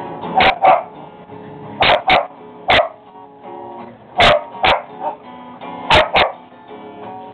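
A dog barking repeatedly, mostly in quick pairs, about nine barks in all, over steady acoustic guitar music.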